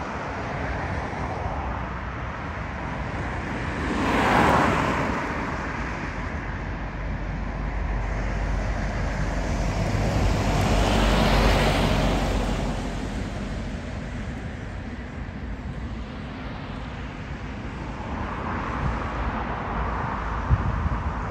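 Jet airliner engines roaring at a distance, swelling up and fading twice, with gusty wind rumbling on the microphone.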